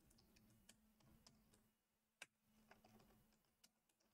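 Near silence with faint, scattered computer keyboard clicks; one click about two seconds in stands out a little.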